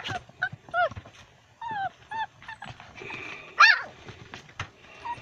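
Young puppies whimpering and yipping in a string of short, high, falling whines, with one louder yelp about two-thirds of the way through.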